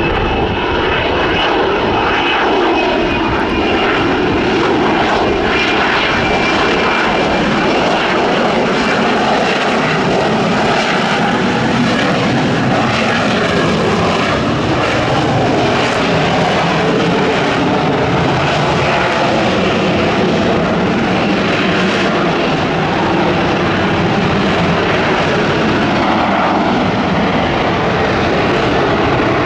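F-35B's F135 jet engine and lift fan running as the jet hovers in vertical-landing mode: a loud, steady jet roar with a faint high whine over it in the first couple of seconds.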